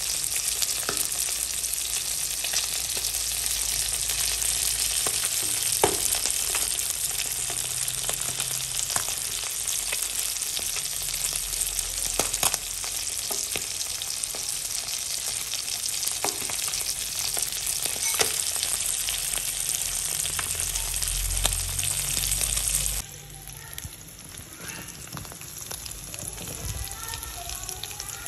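Small whole fish sizzling in hot oil in a wok: a steady loud hiss with occasional sharp pops of spitting oil. About 23 seconds in it drops suddenly to a quieter sizzle with small bubbling crackles.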